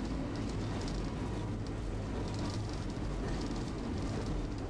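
Tosaden streetcar running along its street track, heard from inside the car: a steady rumble of motor and wheels on rail, with light clicks about once a second.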